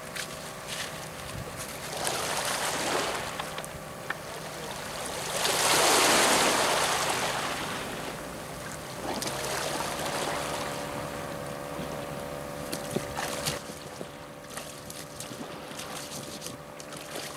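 Small waves lapping and washing up a shingle beach, the largest wash swelling about six seconds in, with scattered clicks of pebbles. A faint steady hum runs underneath.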